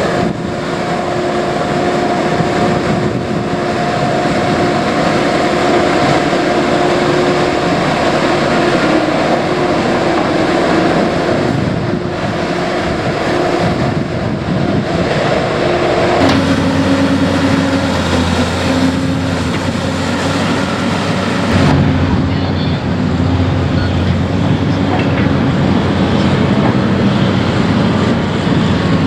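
Heavy diesel construction machinery running under load, with a steady engine tone that drops to a lower pitch about halfway through and shifts again a few seconds later.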